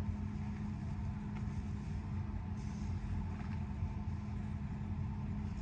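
Steady low machine hum with a faint held tone, the room's background noise, and a few faint rustles as a satin scarf is tied on the head.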